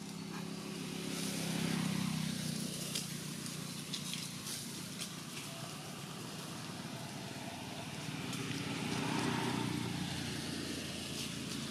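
Low, steady hum of a motor vehicle's engine that swells and fades twice, with faint scattered clicks and ticks over it.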